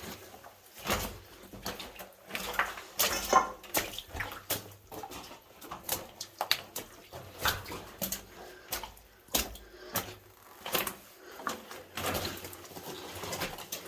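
Irregular clicks, knocks and scrapes, one or two a second, from people handling and moving over loose, brittle rock in a mine passage.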